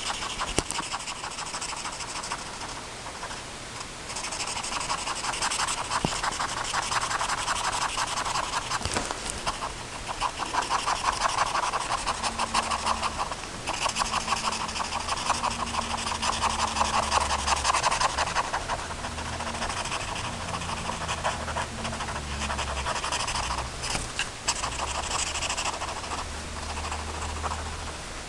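Pen scribbling rapidly back and forth on paper to shade in a dark area: a dense, scratchy rubbing that swells and eases in long stretches. A faint low hum sits underneath in the second half.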